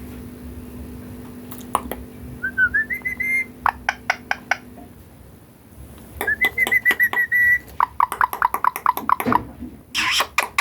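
Ringneck parrot whistling and chattering: short rising whistled notes, quick runs of clicky chatter, and a harsh squawk near the end.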